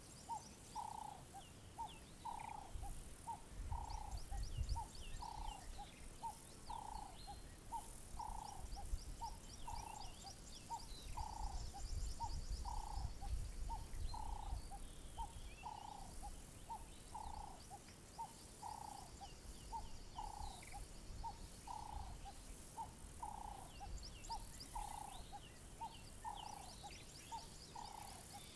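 Savanna wildlife ambience: one creature's short, low call repeats steadily about every 0.7 seconds, with birds chirping and trilling higher up and a low wind rumble on the microphone that swells twice.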